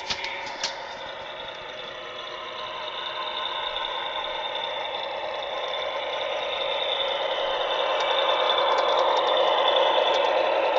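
DCC sound decoder in a Walthers Proto 2000 E7 model diesel locomotive playing its diesel engine sound through the model's small speaker. The sound grows steadily louder over the first several seconds, with two short clicks right at the start.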